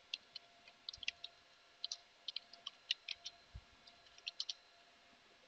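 Computer keyboard typing: irregular key clicks in quick runs, stopping about four and a half seconds in.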